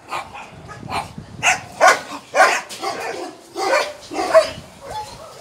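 A dog barking repeatedly, short barks about two a second.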